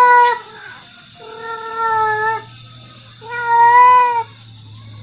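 Male cat's mating call: long, drawn-out yowls, one ending just after the start and two more of about a second each. A steady high-pitched whine runs underneath.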